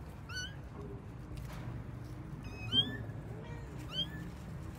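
Kittens mewing: several short, high-pitched mews, the loudest a little under three seconds in.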